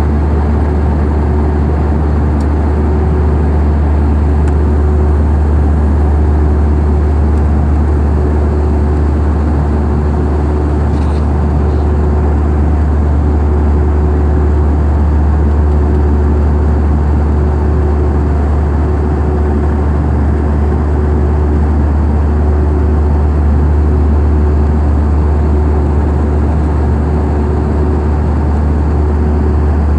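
Steady, loud, low-pitched engine drone, even and unchanging throughout, with a faint steady hum above it.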